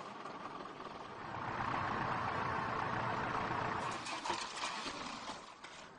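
Road-works truck engine running steadily, growing louder about a second and a half in. Several sharp clicks and scrapes come in the last couple of seconds, matching a shovel working material around a manhole frame.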